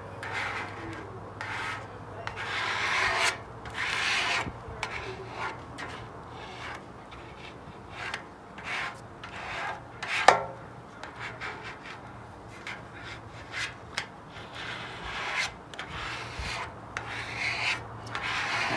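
A plastic gift card used as a squeegee, rubbed in repeated uneven strokes over a wet, soaped vinyl decal on a motorcycle fuel tank, pushing the water and bubbles out from under it so it sticks. A single sharp tap about halfway through is the loudest sound.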